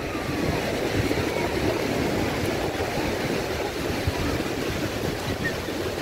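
Sea surf on a shallow sandy beach: a steady wash of small breaking waves, with some wind buffeting the microphone.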